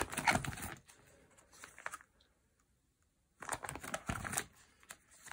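Plastic eight-pocket card-binder page being turned, crinkling and rustling in bursts: one at the start, a smaller one about a second and a half in, and another about three and a half seconds in.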